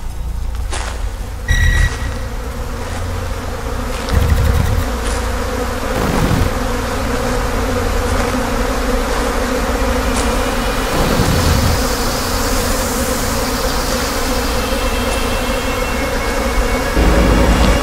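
Steady, insect-like buzzing drone over a low rumble, with a thin high whine joining about halfway through and a few dull low thuds.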